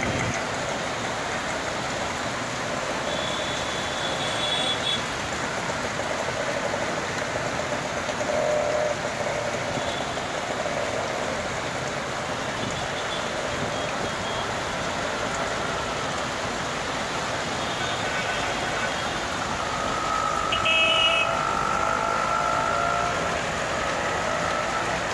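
Street traffic in heavy rain: a steady hiss of rain and passing vehicles, with short high beeps twice and a longer horn-like tone about twenty seconds in.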